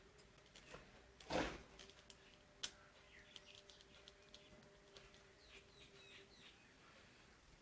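Mostly quiet, with faint bird chirps in the background. A short handling noise comes about a second and a half in, and a single sharp click follows about a second later.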